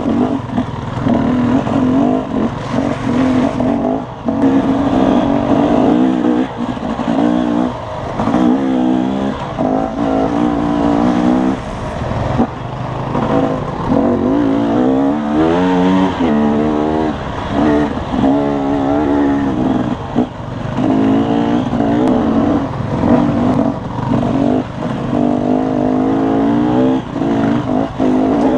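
Dirt bike engine being ridden, its revs constantly rising and falling with the throttle, with a few brief drops as the throttle is rolled off.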